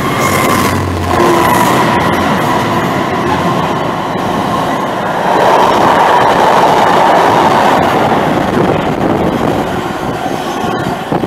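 Freightliner Class 66 diesel locomotive, with its two-stroke V12 engine, passing close by. Its engine note drops away about a second in, and then comes the continuous rumble and clatter of container wagons rolling past, loudest in the middle.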